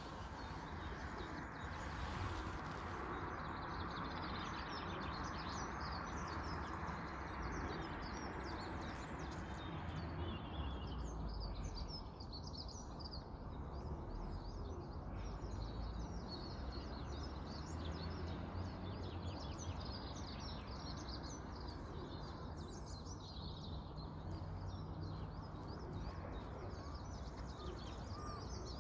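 Small songbirds singing and chirping, many short high calls overlapping, over a steady low outdoor background rumble.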